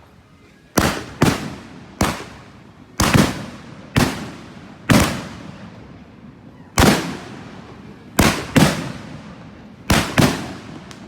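Fireworks bursting overhead: about a dozen loud bangs at irregular intervals, some in quick pairs, each trailing off in a short rumble.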